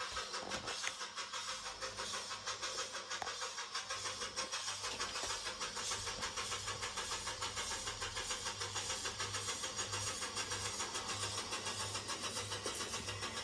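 009 narrow-gauge model locomotive and coaches running along the layout track: a steady whir with a fast, even pulse.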